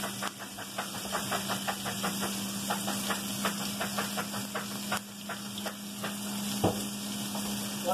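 Chopped bacon and onion sizzling in a wok over a gas burner, with irregular crackling pops of hot fat over a steady low hum. One louder knock near the end.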